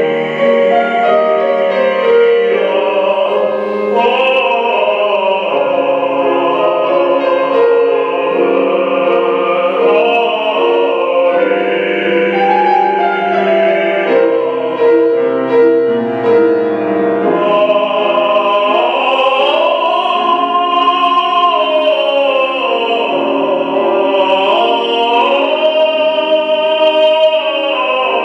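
Male opera singer singing a classical piece with vibrato, accompanied by a grand piano.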